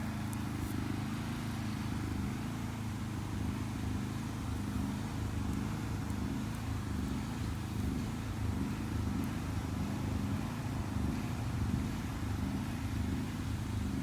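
Gas engine of a pressure washer running steadily, with a slightly uneven low pulse, while almost out of fuel and about to cut off.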